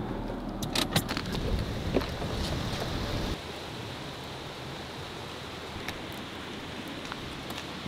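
Wind buffeting the microphone outdoors: a rumbling gust that cuts off abruptly about three seconds in, leaving a quieter steady hiss with a few light clicks.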